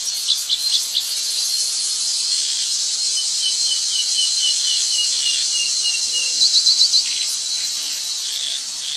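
Steady, dense insect chorus, high-pitched and continuous, with a bird calling over it in short chirps: a few near the start, then a run of about a dozen evenly spaced chirps through the middle, and a quick burst of notes about two-thirds of the way in.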